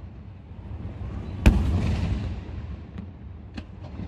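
Fireworks: one loud aerial shell bursts about one and a half seconds in, its boom slowly fading, then a few smaller sharp cracks near the end.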